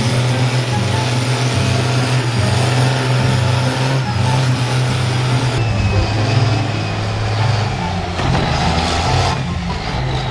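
A heavy vehicle or machine engine running loudly with a low hum and mechanical noise, the sound shifting about two-thirds of the way through.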